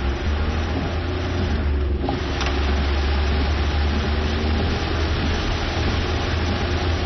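Heavy rain pouring down in a steady hiss, with a steady low rumble underneath.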